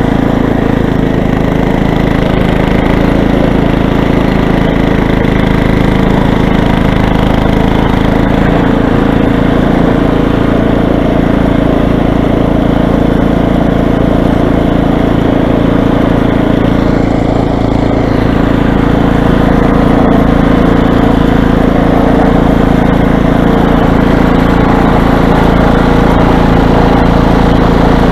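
Toro snow blower's small engine running steadily, clearing snow.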